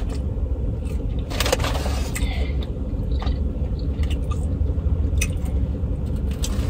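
A steady low rumble runs underneath scattered clicks, scrapes and a brief rustle about a second and a half in, as of a takeout food container and its contents being handled.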